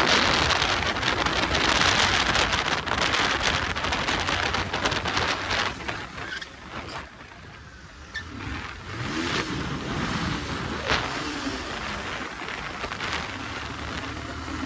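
Wind rushing over the microphone while riding a motorcycle, with engine and road noise underneath. The rush dies down briefly about seven seconds in, then picks up again, less loud than at the start.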